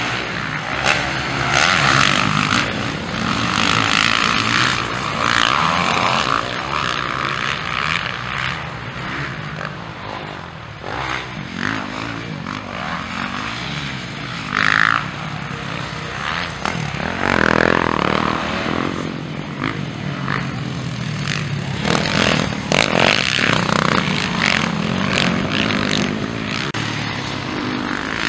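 Motocross dirt bike engines revving hard and backing off over and over as riders race around the track, the note rising and falling with each throttle change.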